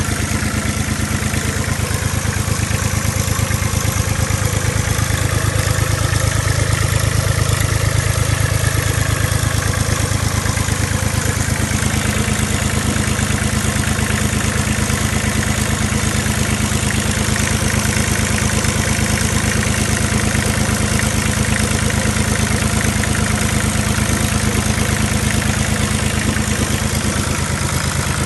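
Volvo Penta D1-20F three-cylinder marine diesel idling steadily with an even, rapid beat.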